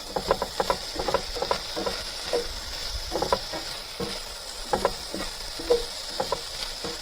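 Potatoes and chopped meat sizzling in a frying pan with a steady hiss. A utensil stirs them, making repeated short scrapes and clicks against the pan.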